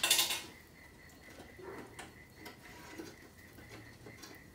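Wire cooking rack being slid into a steel smoker oven: a short loud scrape at the start, then light scattered clicks and taps. A faint steady high tone sits behind.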